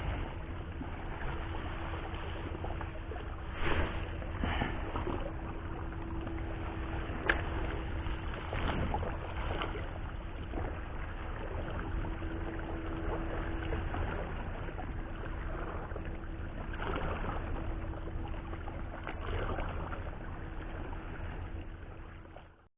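A boat engine running with a steady drone, over constant wind and water noise, with a few short knocks along the way.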